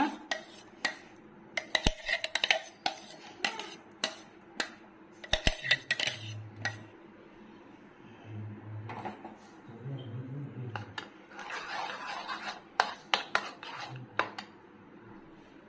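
Steel spoon clinking and scraping against a stainless steel mixer jar as thick blended avocado is scooped out, then scraping through the thick mixture in a plastic bowl. There are many sharp clinks, bunched at the start and again near the end.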